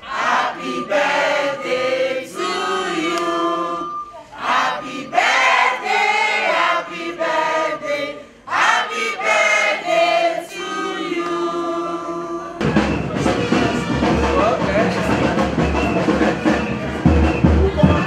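A crowd of people singing together in chorus. About two-thirds of the way in, the singing gives way to recorded music with a pulsing bass beat.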